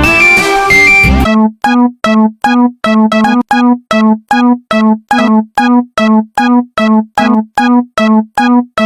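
A brief burst of busy electronic music, then a Japanese railroad crossing's electronic warning bell ringing steadily: the same short pitched ding repeated two to three times a second.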